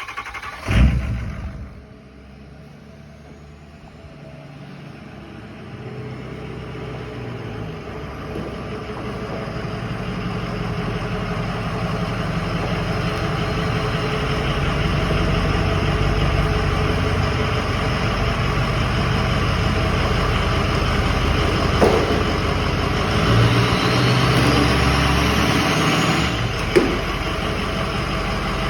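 Diesel pickup truck engine, a 6.0 Power Stroke V8, running as the truck drives, its sound building gradually over the first half and then holding steady. A short loud burst about a second in, and two sharp knocks in the second half.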